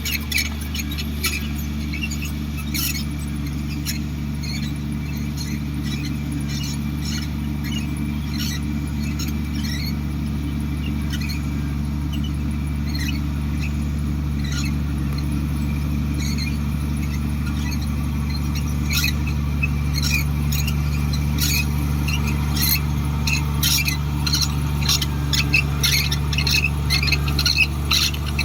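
Heavy diesel engine, likely the Komatsu D58 bulldozer's, running at a steady low drone, with frequent short high squeaks and clicks over it that come thicker in the last few seconds.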